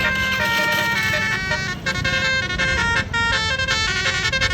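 Indonesian 'telolet' bus horn: a multi-tone horn playing a quick melody of held notes that step up and down, with short breaks about two and three seconds in, over a low rumble.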